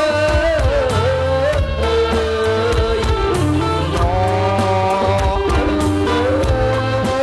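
Live band music accompanying a likay performance: a wavering, sliding melodic lead line over a stepping bass line and steady drum beats.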